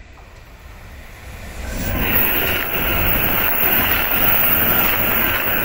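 Shinkansen bullet train passing close by at speed. A rushing noise of air and wheels grows and turns loud about two seconds in, then holds steady.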